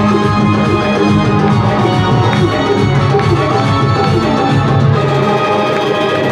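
Bhajan music played loud, with an organ-like keyboard holding steady notes over a running drum rhythm.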